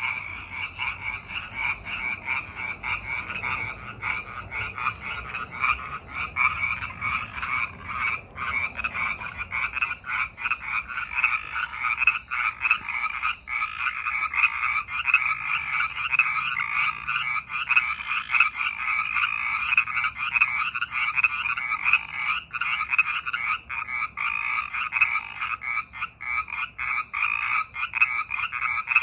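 A dense, unbroken chorus of frogs calling, many rapid pulsed calls overlapping at two pitches.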